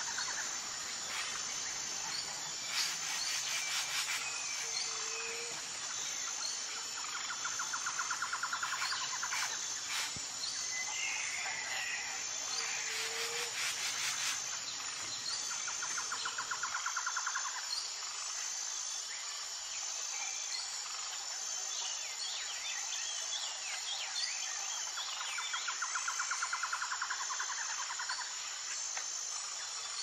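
Tropical forest ambience: birds chirping and calling over a steady high drone of insects. Twice a rapid pulsing trill runs for a few seconds, and bouts of buzzy, fast-pulsed calls come and go.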